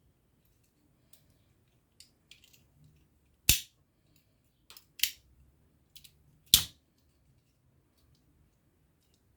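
Sharp plastic clicks from handling a Makita ML006G XGT folding LED flashlight: three loud clicks about a second and a half apart, with softer taps and clicks between them.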